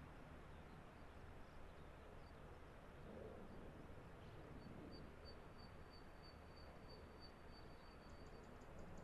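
Near silence: faint outdoor background hiss, with a faint high, evenly pulsed chirp lasting a few seconds around the middle.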